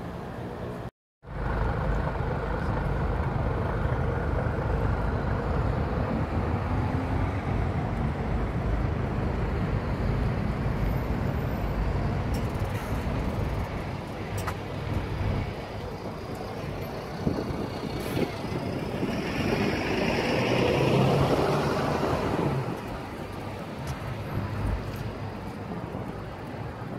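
Road traffic going by close alongside on a city street, a steady noise with a louder vehicle passing about twenty seconds in. There is a brief silent gap about a second in.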